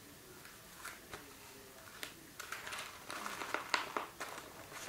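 Soft rustling and crinkling of paper as a rolled paper tube is handled and worked by hand, with a quicker run of short crackles and taps about halfway through.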